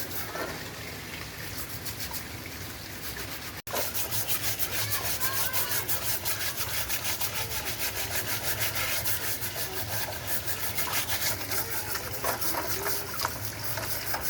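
Rapid back-and-forth rubbing strokes on a hard surface, several a second, as when sanding or scrubbing a part by hand. The sound cuts out for an instant a little over three seconds in, then the strokes go on a little louder.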